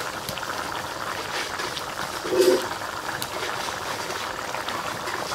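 Curry gravy with potatoes boiling hard in a wok: a steady bubbling with many small pops. A brief low-pitched sound stands out about two seconds in.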